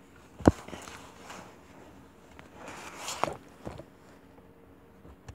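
Handling sounds from toy baby dolls and small things being moved on a shelf: a sharp knock about half a second in and another about three seconds in, followed by a lighter knock, with rustling of doll clothes before the second.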